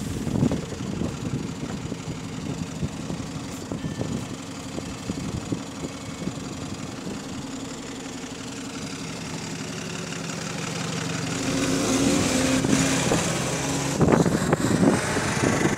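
Double-decker bus engine with a broken cooling fan running at a stop, a steady multi-tone drone, then rising in pitch and growing louder from about eleven seconds in as the bus pulls away. Wind buffets the microphone near the end.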